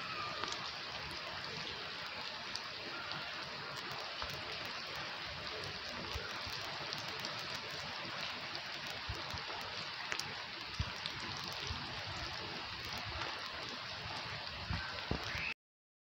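Heavy rain falling steadily on wet concrete and puddles, an even hiss with scattered sharper drop taps. It cuts off suddenly near the end.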